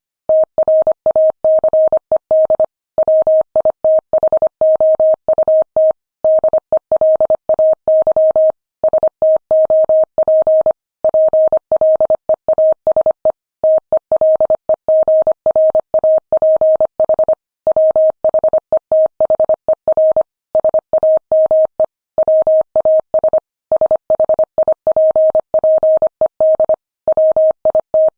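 Morse code sent at 25 words per minute: a single steady beep tone keyed rapidly on and off in dots and dashes, with short pauses between words.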